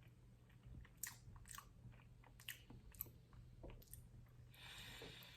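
Faint chewing: soft mouth clicks as a bite of ube leche flan cake is eaten, with a short hiss near the end.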